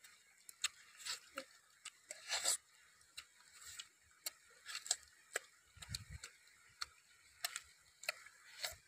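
Close-up eating sounds: lips smacking and teeth chewing on cooked chicken, heard as irregular sharp wet clicks, about two a second.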